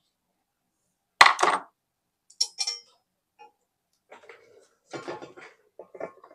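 Metal clinks and rattles from handling the amplifier's chassis and parts while its circuit board is taken out: one sharp clack about a second in, then a few lighter clinks and small rattles.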